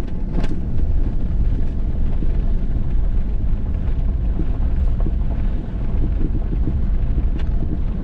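Vehicle driving along a dirt and gravel road: a steady low rumble of engine and tyres, with a few light clicks and knocks from bumps.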